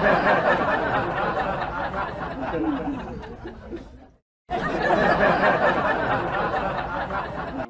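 A crowd laughing and chattering, many voices at once. It cuts off suddenly about four seconds in and starts again half a second later.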